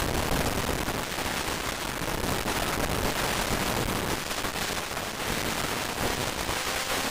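Dense, continuous crackling noise on a GoPro's audio track, the fault the recording suffers from, covering any other sound. A faint rising tone shows through near the end.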